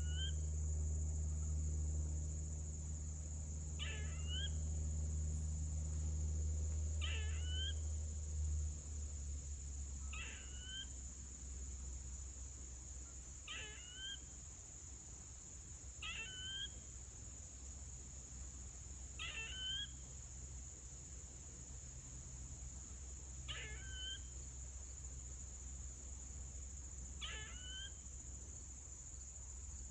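A squirrel screeching, calling over and over about every three to four seconds; each call is a short harsh note that ends in a rising squeal.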